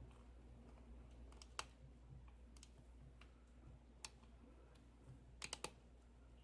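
Faint clicks of a lock pick and tension wrench working the pins of a Schlage key-in-knob 5-pin lock cylinder during single pin picking: a sharp click about one and a half seconds in, another about four seconds in, and a quick run of three near the end.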